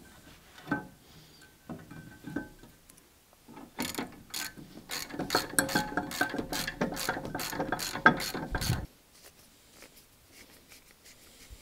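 Hand ratchet clicking as a bolt on the rear brake assembly is run in: a few separate clicks, then about five seconds of fast ratcheting that stops abruptly.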